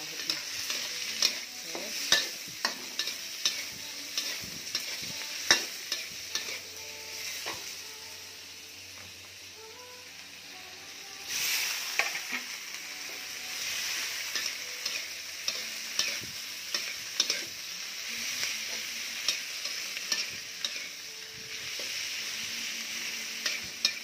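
Food sizzling in a steel wok while a spatula stirs and scrapes it, with irregular sharp clacks of the spatula against the pan. The sizzling quietens for a few seconds and then surges loudly about eleven seconds in.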